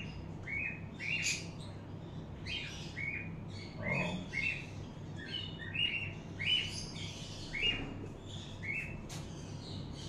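Small pet parrots chirping: a run of short, repeated chirps, about one a second.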